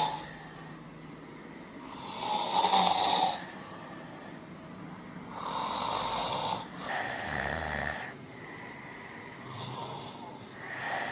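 Sleeping people snoring: a series of snores, each a second or so long, coming every few seconds, with the loudest about two seconds in.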